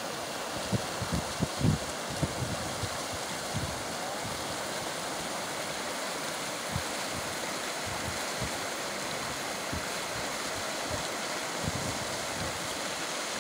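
Muddy floodwater rushing through a breached road and past concrete culvert pipes: a steady rush of water, with a few low thumps in the first two seconds.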